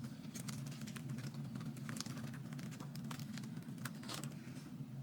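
Scattered small clicks and light rustling at irregular intervals over a steady low hum, with a few stronger clicks near the middle and about four seconds in.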